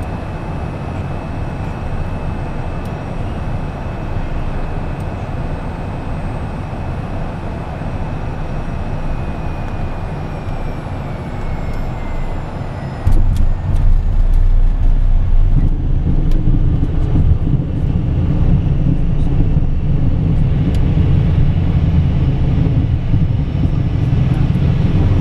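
Cockpit noise of an Embraer Phenom 100 landing: steady jet and airflow noise with a high whine from its Pratt & Whitney PW617F turbofans that falls in pitch as thrust comes back to idle. About thirteen seconds in, the main wheels touch down with a sudden loud low rumble and a few clicks, and the tyres rumble on the runway through the rollout, growing louder again about three seconds later.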